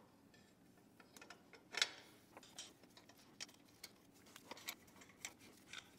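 Faint, irregular clicks and light taps of a metal water pump pulley being fitted by hand onto a Mazda 3's water pump hub, the loudest a sharp click a little under two seconds in.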